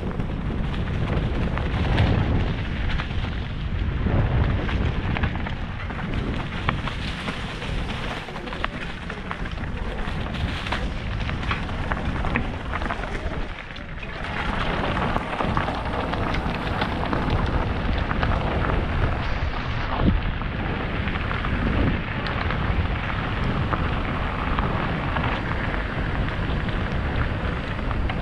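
Mountain bike ridden over a forest trail, heard from a helmet-mounted action camera: wind buffeting the microphone over tyre noise on dirt and gravel, with constant small knocks and rattles from the bike over bumps. The noise changes character about halfway through, when the trail gives way to a gravel road.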